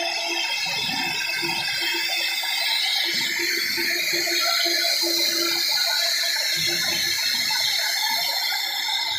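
Two spindle motors of a double-head CNC router carving a wooden door panel: a steady whine over the hiss of the bits cutting wood.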